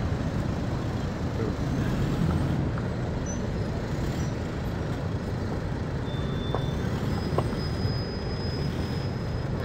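The swollen Ghizer River rushing in flood: a steady, even rush of water with a deep rumble underneath.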